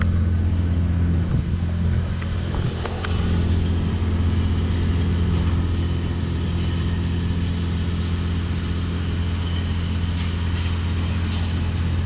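Boat motor running with a steady low hum, with a few faint clicks over it.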